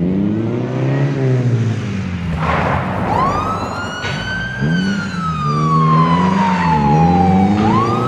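Police car siren wailing: it comes in about three seconds in with a quick rise, falls slowly, then rises again near the end. Under it a car engine revs up and down.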